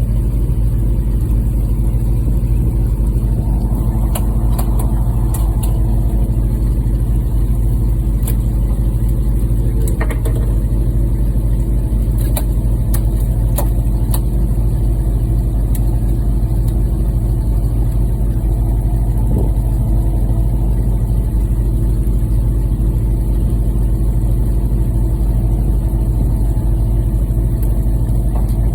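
Fishing boat's engine running at a steady pitch with a deep, even hum, with a few faint clicks early on.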